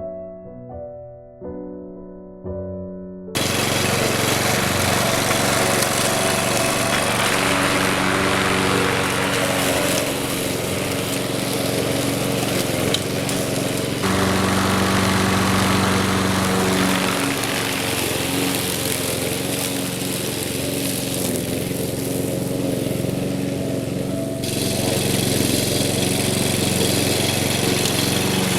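Piano music for about the first three seconds, then a sudden cut to a lawn mower engine running steadily, its tone shifting a little from time to time as it works.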